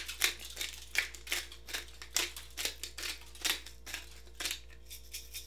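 Pepper grinder being twisted over food: a run of short, crunchy clicks as peppercorns are cracked, two or three a second.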